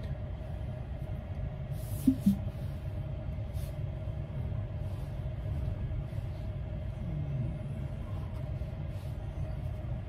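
Low steady rumble inside the cabin of a Tesla Cybertruck creeping through a parking lot, with a faint steady hum and a short falling two-note tone about two seconds in.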